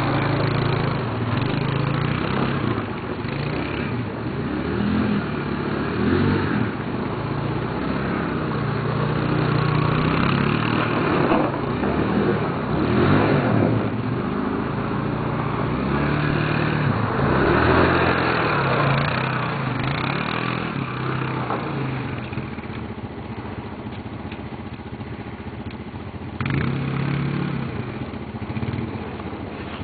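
ATV engine running and revving as the quad is ridden on snow, its pitch rising and falling with the throttle. It eases off for a few seconds and picks up again near the end.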